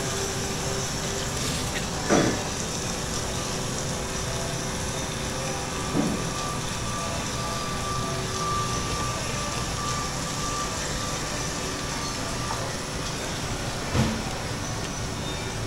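Steady rain-like hiss from an immersive rain installation's soundscape, with three brief sounds sweeping down in pitch and a faint held tone in the middle.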